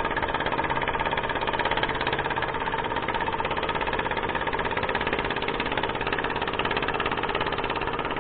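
A motor engine running steadily with a fast, even pulsing chug.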